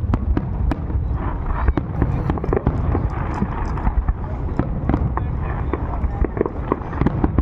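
Fireworks going off: many sharp cracks and pops at irregular intervals, several a second, over a steady low rumble.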